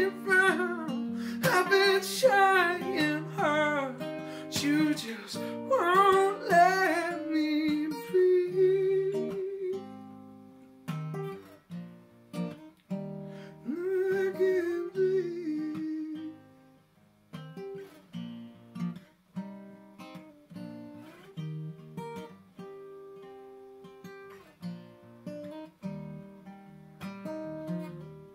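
Acoustic guitar playing, with a man's singing voice over it for about the first eight seconds and again briefly about fourteen seconds in; after that the guitar goes on alone with separate picked notes.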